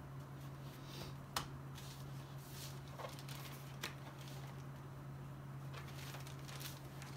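Paper pads and loose sheets being handled and leafed through on a desk: soft rustles of paper with two sharp clicks, over a steady low hum.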